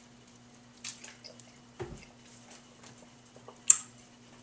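A person drinking and eating at a table: small wet mouth sounds and clicks, a dull thump about two seconds in, and a sharp click near the end, over a steady low hum.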